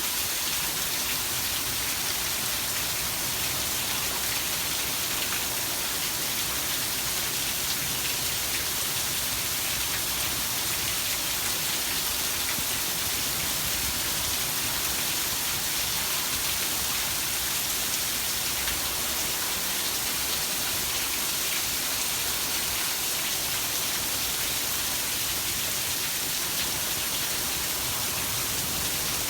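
Heavy rain falling steadily in an even hiss, with fine patter of individual drops.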